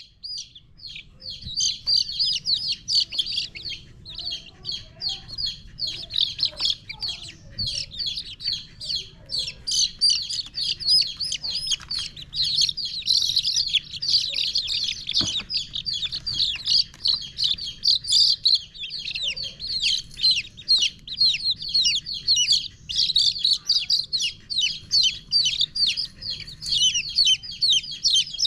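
A group of baby chicks peeping without pause, many short high-pitched cheeps overlapping one another.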